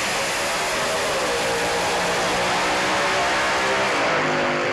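Two drag-racing dragsters' engines at full throttle on a quarter-mile pass, loud and steady, with the engine note falling in pitch as the cars pull away down the track.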